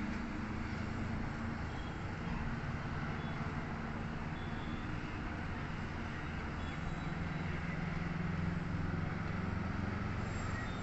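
Steady low rumble of distant road traffic and running vehicle engines, a constant hum with no distinct events.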